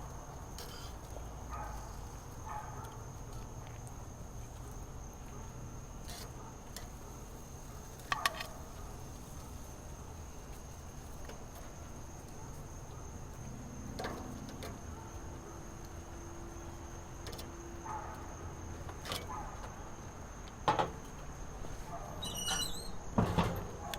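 A steady high-pitched insect trill over a low background hum, with a few light clicks and knocks scattered through.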